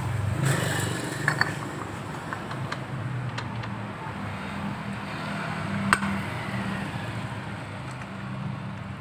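A few light metallic clicks and clinks, the sharpest about six seconds in, as the CVT variator pulley of a Yamaha Soul GT scooter is fitted by hand onto its shaft. A steady low hum lies under it.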